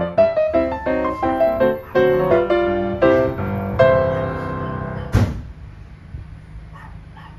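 Background piano music that stops about five seconds in with a single sharp knock, leaving only a faint hiss.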